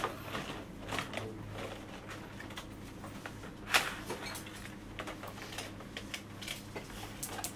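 Scattered light clicks and taps over a faint steady low hum, with one sharper click about four seconds in.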